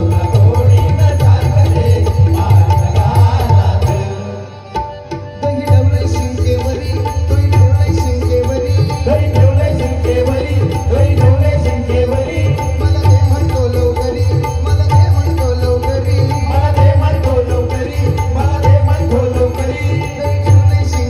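Instrumental stretch of a Marathi gavlan bhajan: a harmonium plays a repeating melodic phrase over pakhavaj and tabla drumming. The music drops away briefly about four seconds in, then picks up again.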